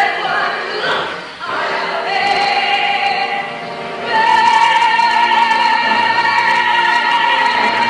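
Stage-musical finale recording: a woman singing with choir and orchestra, with a brief dip about a second and a half in, then a long held chord from about four seconds in.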